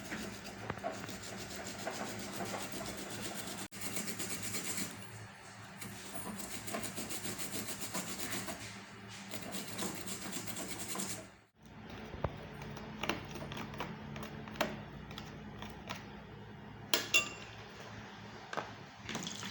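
Fresh ginger root scraped against a hand grater in quick, repeated strokes. The strokes stop abruptly about eleven seconds in, and softer scraping with a few light knocks follows.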